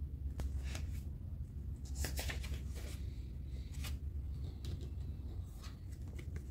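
Pages of a small paperback card-deck guidebook being flipped and handled: a scatter of soft paper rustles and light taps, clustered about two seconds in and again near four and six seconds, over a steady low hum.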